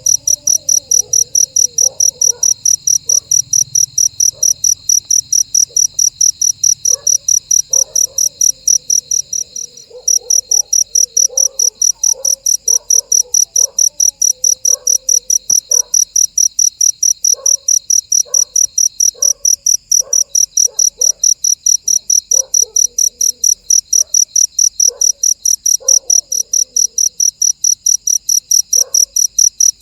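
A cricket chirping loudly and steadily, about three high-pitched chirps a second, with a brief pause about ten seconds in. Fainter short chirps sound lower down in the background.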